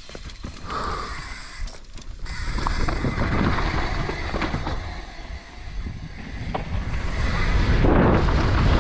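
Downhill mountain bike rolling in and descending fast: rushing wind on the microphone and a rumble of tyres over dirt and rock, with scattered sharp knocks, growing louder toward the end.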